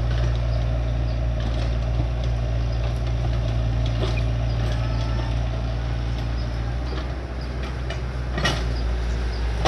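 Hydraulic excavator's diesel engine running steadily, with scattered small metallic clicks and a sharp knock near the end.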